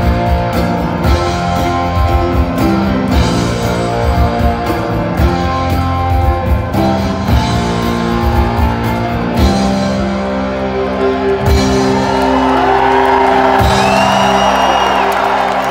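A live rock band plays with drums, bass and electric guitar on a steady beat. Crowd cheering and whooping rise over the music near the end.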